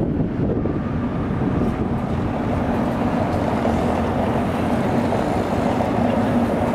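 Steady low rumble and hum of a tram, with no breaks, as an articulated tram goes by close at hand.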